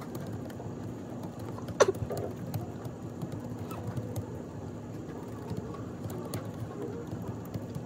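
Typing on a laptop keyboard: light, irregular key clicks over a steady low office hum, with one louder sharp sound about two seconds in.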